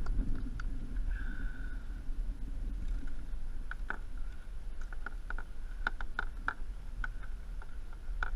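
Scattered light clicks and small splashes from a striped bass on an umbrella rig being handled at the side of a kayak, over a steady low rumble.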